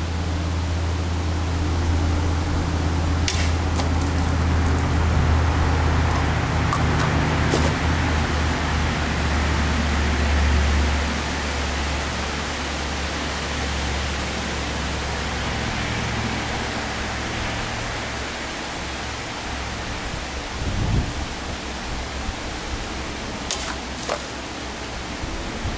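Sharp cracks of a sword blade slicing through plastic water bottles: one about three seconds in, a few more around seven seconds, and two near the end. Under them runs a steady outdoor noise with a low rumble that eases off about eleven seconds in.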